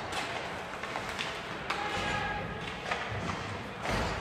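Ice hockey play: a handful of sharp knocks and thuds from sticks, puck and boards over the steady noise of the rink.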